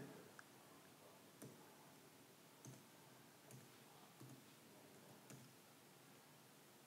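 Faint computer keyboard key presses, single clicks spread out roughly one a second, typing a short string of digits; otherwise near silence.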